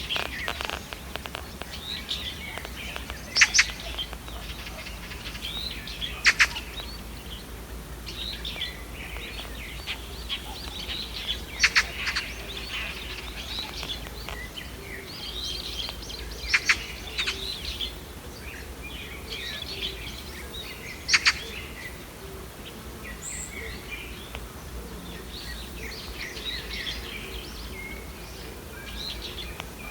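Birds chirping and calling all through, with a handful of louder, brief calls every few seconds over a steady low rumble.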